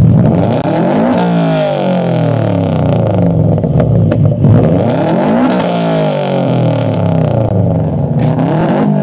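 Subaru Impreza WRX STi's turbocharged flat-four held on a Bee*R rev limiter, running loud and steady through a Blitz Nur Spec R exhaust, with a few sharp cracks as the limiter cuts the ignition.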